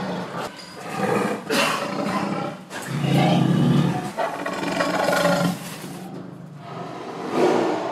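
Low animal calls in several drawn-out bursts, loudest about three seconds in, easing off around six seconds before rising again near the end.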